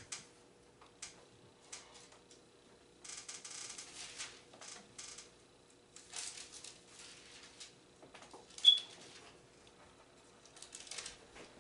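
Faint rustling of paper pages being turned and handled, in several short bursts with small clicks and taps between them, and one sharp high tick about nine seconds in.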